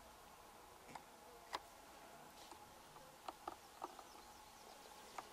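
Near silence: a faint outdoor hush broken by a handful of soft, short clicks, a cluster of them about three and a half seconds in.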